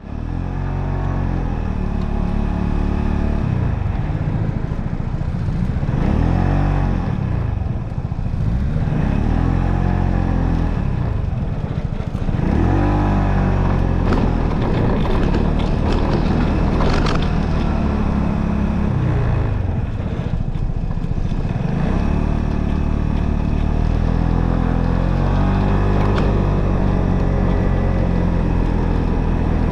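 Motorcycle engine running while the bike is ridden along, its pitch rising and falling several times as the throttle opens and closes.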